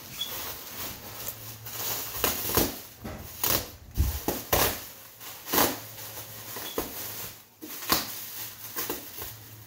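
Bubble wrap crinkling and rustling as it is handled and pulled off a boxed computer, in irregular crackles and sharper rustles.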